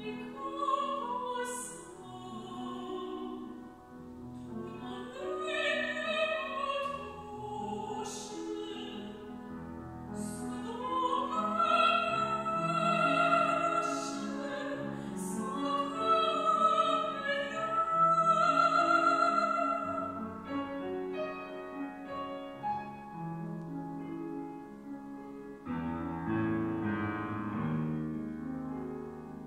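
A classically trained soprano singing a French art song with a Steinway grand piano accompanying, her voice climbing to its loudest, high sustained notes about halfway through. About twenty seconds in the voice stops and the piano plays on alone, growing louder near the end.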